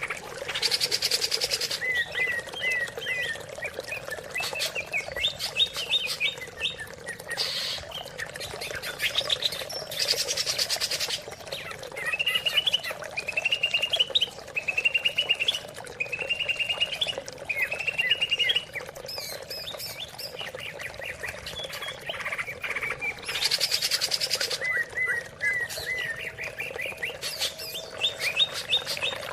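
Greater green leafbird (cucak ijo) singing: runs of quick repeated chirping phrases, broken by several short harsh rasping bursts, over a steady background of running water.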